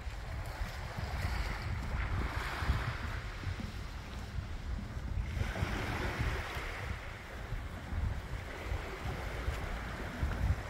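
Wind buffeting the microphone as a steady low rumble, over the hiss of sea waves washing against the pier. The wash swells twice, about two and six seconds in.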